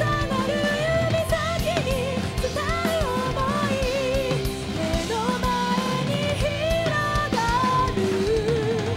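Live rock band playing: a woman singing lead over electric guitar, bass and a drum kit, some held notes sung with vibrato.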